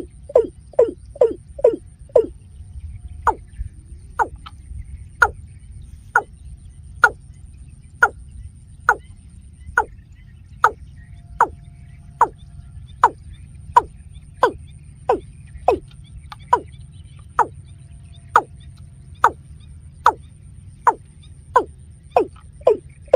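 Watercock calling: a long series of short notes, each sliding down in pitch, about one a second, quickening to two or three a second at the start and near the end, over a steady low rumble.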